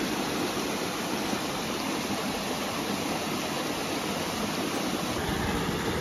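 Steady rush of a small mountain stream tumbling over rocks and a low cascade, getting deeper near the end.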